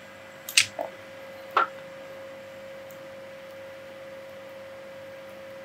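Recording background noise: a steady faint hum at one fixed mid pitch over a low hiss, with two short clicks about half a second and a second and a half in.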